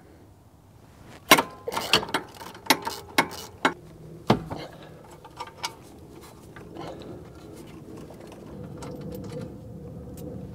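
Hand ratchet clicking and steel tools clinking against a rear brake caliper as its bolts are undone. Most of the sharp clicks come between about one and four and a half seconds in; after that they are fewer and fainter.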